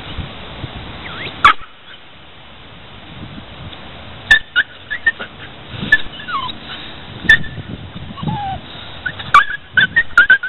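Springer spaniel whining in short high squeaks and a couple of falling whines, broken by about six sharp, loud yelps spread through.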